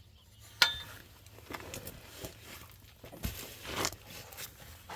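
A metal exhaust clamp being handled and fitted over the pipe. There is a sharp metallic clink about half a second in, then scattered light knocks and a brief rustle of metal being shifted.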